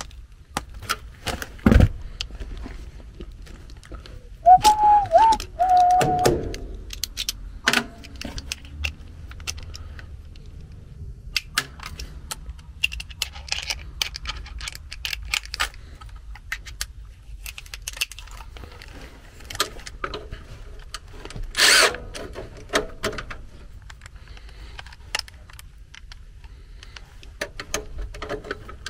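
Scattered plastic clicks, rattles and knocks as wire-harness connectors are unplugged from a furnace control board and wires and a screwdriver are handled. There is a brief wavering squeak about five seconds in and a sharper knock a little past twenty seconds.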